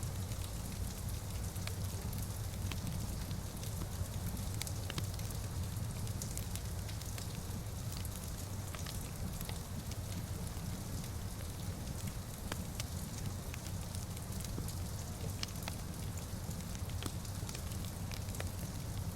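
Wood fire crackling in a fireplace: scattered sharp pops and snaps over a steady low rumble, with a soft hiss of rain against the windows.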